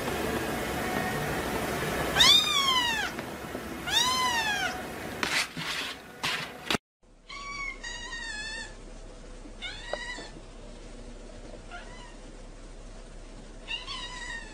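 Kittens meowing: two long high meows that rise and fall, over a steady hiss, then a different kitten giving a run of shorter meows.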